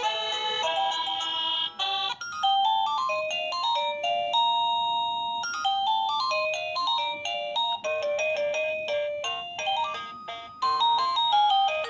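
Wireless doorbell receiver playing its built-in electronic chime melodies, simple tunes of single beeping notes. One tune breaks off about two seconds in and another begins, and the tune changes again near the end.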